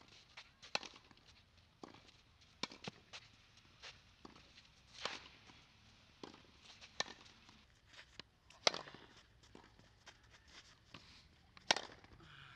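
Tennis racket strikes on the ball during baseline practice, with ball bounces and shoes scuffing on the clay court in between; the sharpest hits come about two thirds of the way in and near the end.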